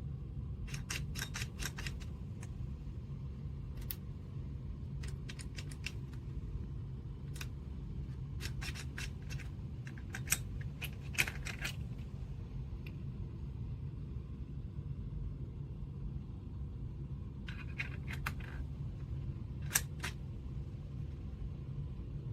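Small metal clicks and scrapes in scattered clusters from a metal tripod ball head and its quick-release plate being handled, over a steady low hum.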